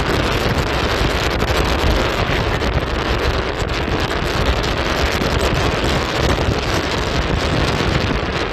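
Strong wind buffeting the microphone: a loud, steady rush with a heavy low rumble.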